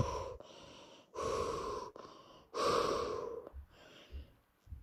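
A person breathing hard while recovering between exercises: two long, loud breaths about a second apart, then a few faint low bumps near the end.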